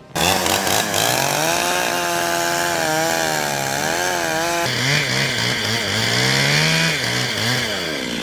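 Chainsaw running at high revs, its pitch rising and falling as the load changes. The sound changes abruptly about halfway through.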